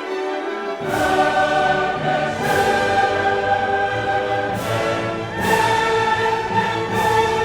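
Classical choral music: a choir singing with orchestra in slow, sustained chords. The low voices and bass come in about a second in.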